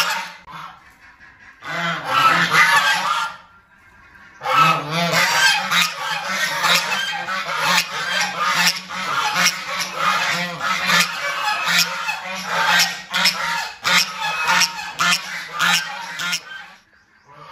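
White domestic geese honking: two short bouts first, then a long run of honks, several birds at once, that stops shortly before the end.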